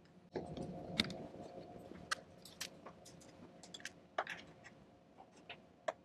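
Scattered light clicks and knocks from handling an opened iMac's aluminium case and LCD panel as it is lifted upright, with a duller knock about a third of a second in. A faint steady hum starts at that knock and continues underneath.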